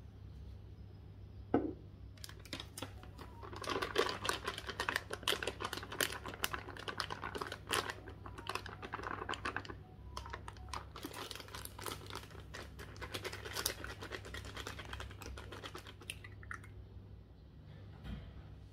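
A plastic flour bag crinkling and rustling as flour is poured from it into a glass bowl: a dense run of fine crackles, after a single knock near the start, thinning out near the end.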